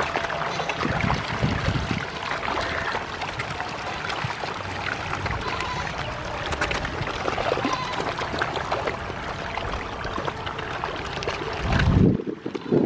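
Hybrid magur catfish crowding and thrashing at the pond surface, a continuous watery splashing and trickling full of small splashes. A brief low rumble comes near the end.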